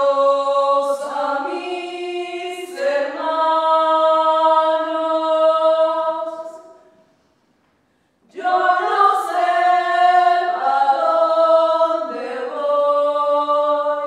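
A small group of voices singing a cappella in long held notes that step between pitches. The singing comes in two phrases, with a silent gap of about a second and a half near the middle.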